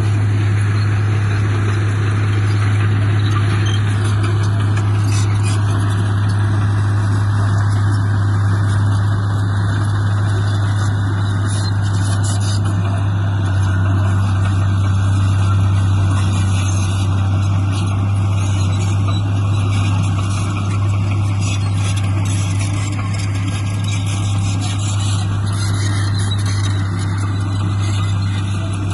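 Heavy diesel engine of earthmoving equipment running steadily under a constant load, a strong low drone that holds level throughout.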